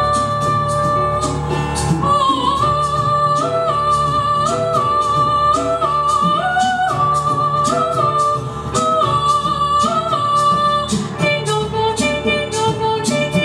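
Female vocalist singing long, held melodic notes that step up and down in pitch, over a steady beat of sharp vocal-percussion clicks and a sustained low keyboard part.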